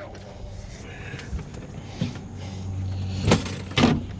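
A low steady motor hum that grows louder in the second half, with two sharp knocks near the end.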